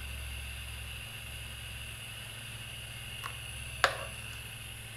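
Steamed milk poured quietly from a stainless steel pitcher into a ceramic cup over a steady low hum, with one sharp click just before four seconds in.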